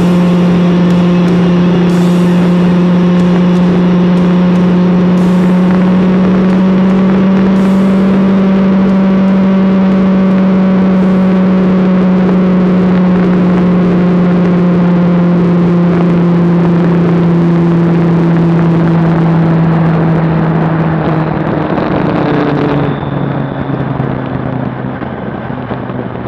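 Kawasaki Ninja 1000SX inline-four engine running at a steady cruise, with wind rush, heard from a camera mounted on the bike. Near the end the engine note drops in pitch and gets quieter.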